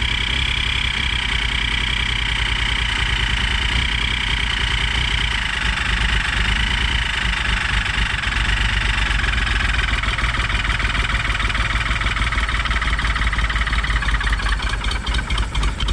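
1967 Triumph GT6's straight-six engine idling with a steady high-pitched scream over it, which weakens near the end. The owner traces the scream to the carburetors, most likely the front carb, and thinks it sounds like air being sucked in.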